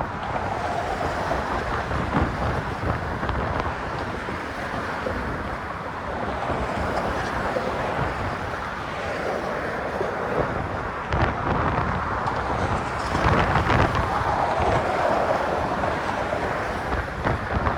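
Wind rushing and buffeting a phone microphone muffled by a sock, a steady noise that swells to its loudest about 13 seconds in.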